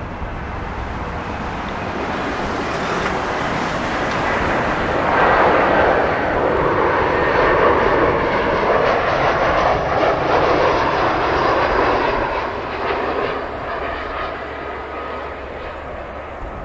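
Airbus A320 jet airliner on landing approach, its twin jet engines passing by: the engine noise grows, is loudest for several seconds in the middle as the plane goes past, then fades toward the end as it descends to the runway.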